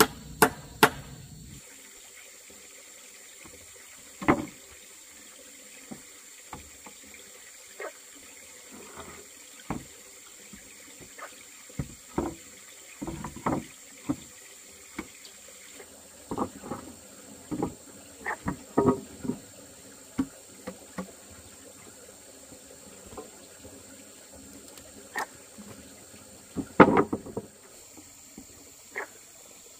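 Two quick chopping strokes at the start, then irregular knocks and short splashes of water being handled, with a louder cluster of splashing near the end.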